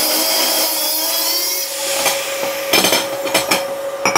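Angle grinder with a cut-off wheel running and cutting through square steel tubing: a steady high whine over a bright hiss. In the second half a run of sharp knocks comes over it.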